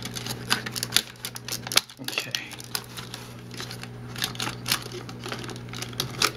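Hard plastic clicking and rattling as a GoPro Hero3 camera in its clear waterproof housing is handled and worked loose from its plastic packaging mount: irregular light clicks and knocks, over a steady low hum.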